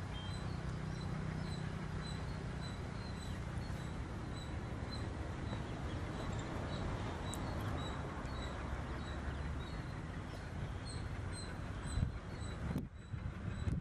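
Twin ALCO WDG-3A diesel locomotives working a freight train at a distance: a steady low engine throb. Faint high chirps repeat over it, and a few sharp clicks come near the end.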